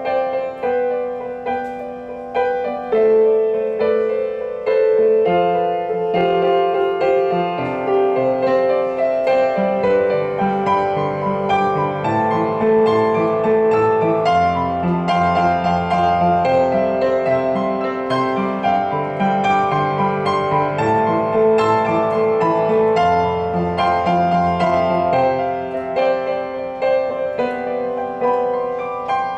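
Solo upright piano playing an instrumental interlude of a slow ballad: sustained chords over held bass notes, with deeper bass notes coming in about halfway through. No singing.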